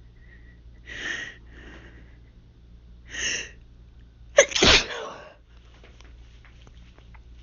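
A young woman's hay-fever sneeze: two breathy build-ups about one and three seconds in, then one loud sneeze about four and a half seconds in, followed by faint sniffing.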